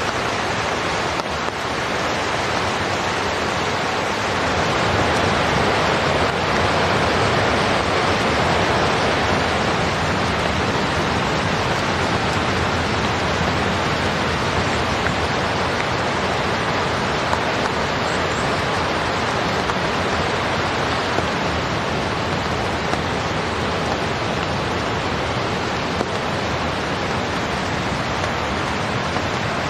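Steady rain falling on the forest and on a tent fly, an even hiss with a few louder single drips.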